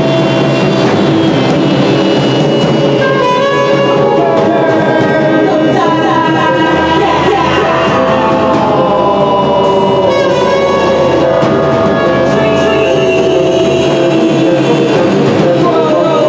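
Live experimental space music: layered sustained tones, with slow gliding pitches that bend up and down over a low droning bass.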